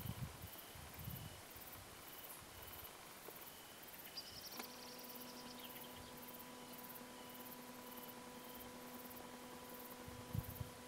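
Faint crickets chirping in a steady, evenly repeating pulse. Partway through, a steady low hum sets in under them, and a few dull low thumps come near the start and again near the end.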